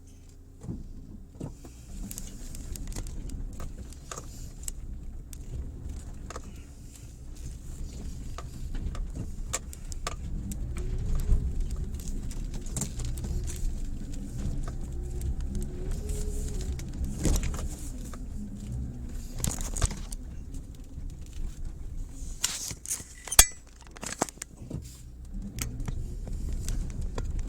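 Mitsubishi Pajero Mini driving slowly over a rough, bumpy track: a low engine and road rumble with frequent rattles and knocks from the body and loose items. The engine note rises and falls midway, and a single sharp knock comes near the end.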